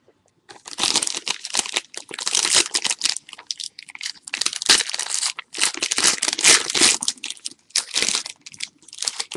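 Foil wrapper of a trading-card pack crinkling and tearing as it is opened by hand. It starts about half a second in and comes in repeated spells of crackling.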